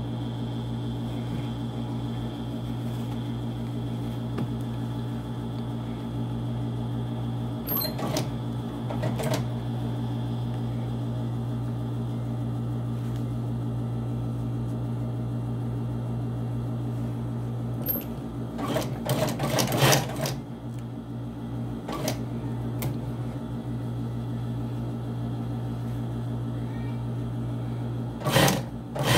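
Industrial sewing machine's motor humming steadily while idle, with scattered clicks and a few short bursts of machine clatter, the loudest about two-thirds through and near the end.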